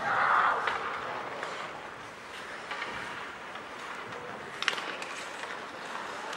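Ice hockey rink noise: a steady hiss of play and crowd, with a brief swell near the start and one sharp knock a little before the five-second mark.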